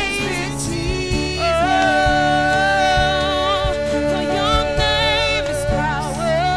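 Live gospel worship music: a woman singing lead into a microphone over instrumental accompaniment, holding one long note through the middle.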